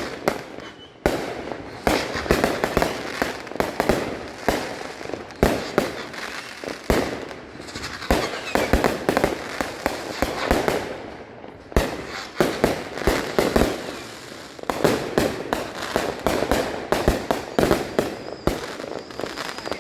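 Many fireworks going off at once in a continuous barrage: sharp bangs overlapping one another, several each second, with no let-up.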